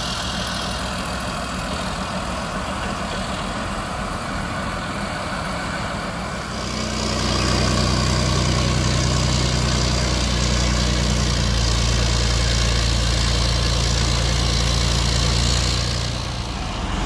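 Leopard 2 main battle tank's V12 diesel engine running steadily, growing clearly louder about six to seven seconds in as the tank drives out onto the landing ship's ramp, then dropping back near the end.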